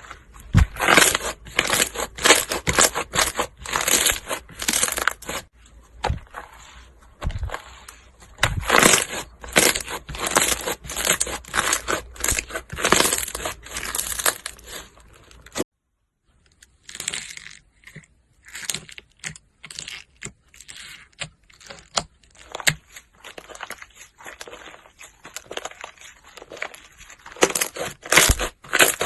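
Slime being squeezed and pressed by hand, giving dense runs of crunchy crackling pops. About halfway the sound cuts out abruptly for a moment. Sparser, quieter crackles follow and grow louder again near the end.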